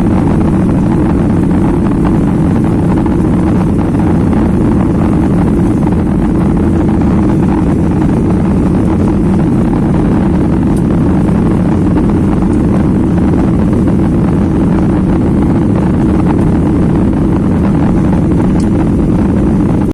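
Airliner's jet engines and airflow heard from inside the passenger cabin, a loud, steady, low noise that holds the same level throughout, during the takeoff or climb.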